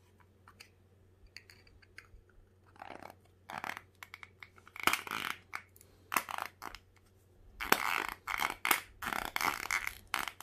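Clear plastic coin capsule being handled and closed over a 2 oz silver coin: a run of short clicks, taps and scrapes of plastic and metal. It starts faint and gets busier from about three seconds in, most of all over the last three seconds.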